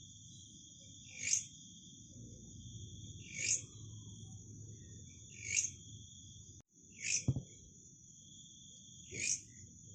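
Belalang (grasshopper) stridulating: a steady high-pitched buzz with a louder rasping 'krek' about every two seconds. A short low thump a little past the middle.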